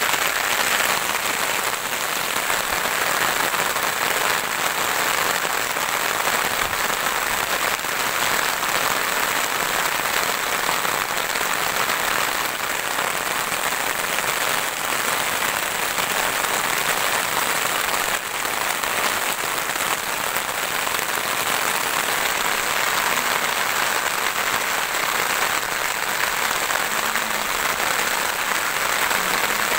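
Steady rain falling on leafy plants and fields: an even, unbroken hiss.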